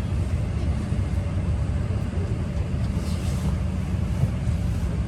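Steady low rumble with a hiss over it inside an Airbus A319 airliner cabin.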